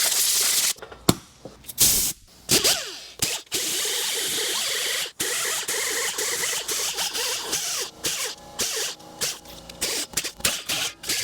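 Compressed-air tool on a shop air hose, hissing and run in short on-off bursts, with a motor whine that rises and falls in pitch. It is cleaning rust and paint off the bare brake hub.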